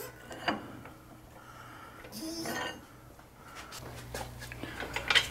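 Light metallic clinks and knocks of a pressed steel workpiece being handled and set against an angle gauge, over a faint low hum. A single click comes about half a second in, then a scattered run of clinks near the end with the loudest just before it finishes.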